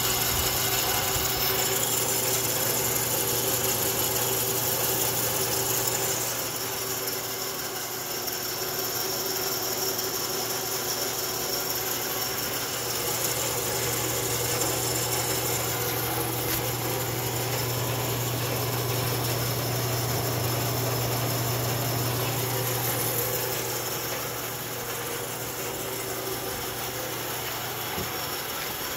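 Rockwell Beaver (Delta 28-540) 16-inch bandsaw running free with no cut, its electric motor belt-driving the blade wheels on new polyurethane tires. It runs smoothly with a steady low hum and whir.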